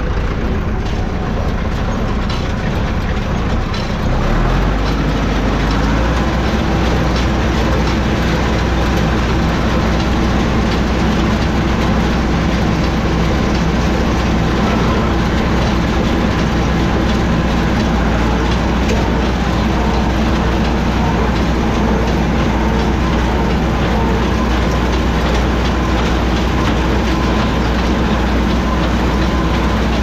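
Massey Ferguson 178 tractor's diesel engine running steadily at baling speed, about 1700 rpm, driving a New Holland 317 square hay baler through the PTO, with a steady mechanical clatter from the baler. About four seconds in the engine sound grows louder and deeper.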